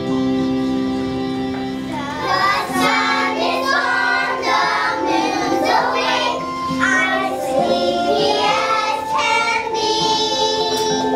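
A group of kindergarten children singing a song together over instrumental accompaniment. The first couple of seconds are accompaniment alone, then the children's voices come in.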